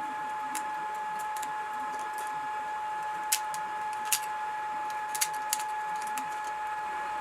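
A small machine's steady high-pitched whine with a few sharp clicks: two stand out in the middle and a close pair comes near the end.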